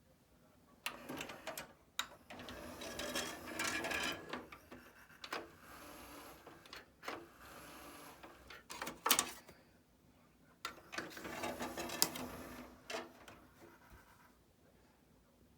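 Onkyo DX-C200 five-disc CD changer mechanism at work: a run of clicks and clatter with a steadier whirring stretch in the middle, as the tray and disc carousel move.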